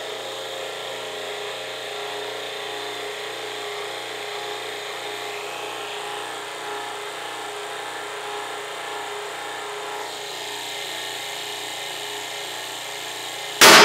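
Hydraulic pump of a 100-ton press brake running at a steady hum as its rams press a piece of half-inch steel plate into a V-die. Near the end comes a sudden, very loud crack: the half-inch steel shears instead of bending, because the bend is too sharp for that thickness.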